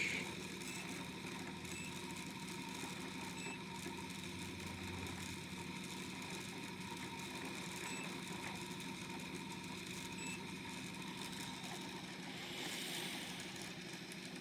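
Homemade pulse motor with two reed switches and two coils running steadily, giving a low, even hum. It has a weird note that the builder suspects comes from the bearing he fitted.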